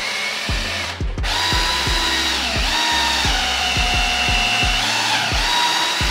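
Cordless drill boring through a PVC pipe fitting, its motor whine falling in pitch as it bogs under load and rising again near the end. The drill cuts out briefly about a second in.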